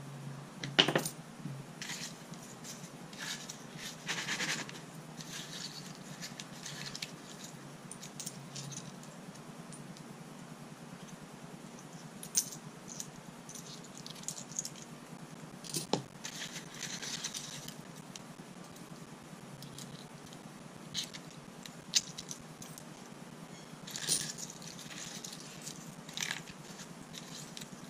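Wet steel pin tumbling media and coins clinking and rattling as fingers pick coins out of a bowl of the pins, in scattered short bursts with a few sharp clicks.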